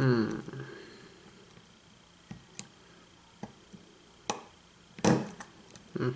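Lock picks working the pins of an Abus Titalium 90/50 padlock, with sharp, scattered clicks and taps of the hook and tension wrench against the pins and core. A brief falling tone at the very start is the loudest sound.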